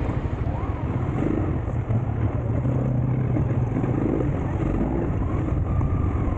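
Dirt bike engine running steadily while riding along a dirt track, heard through the rider's on-board camera microphone, with rough road and wind noise mixed in.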